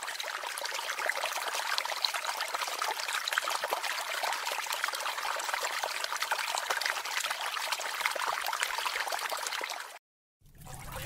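Shallow creek running over stones and cobbles, a steady even rush of water. It cuts off about ten seconds in, and a different sound with a low hum fades in near the end.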